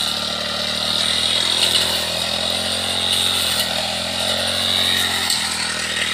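Petrol brush cutter engine running at working speed, with its pitch dipping briefly a couple of times as it cuts roadside grass.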